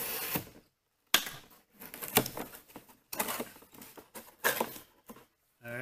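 Cardboard box being opened by hand: a steady ripping hiss of packing tape for the first half-second, then irregular scrapes, crinkles and sharp taps as the cardboard flaps are pulled open and handled.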